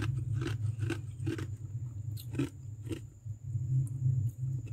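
Kitchen knife scraping and crunching through thick, soft freezer frost in short strokes, about two a second, thinning out after about halfway, over a steady low hum.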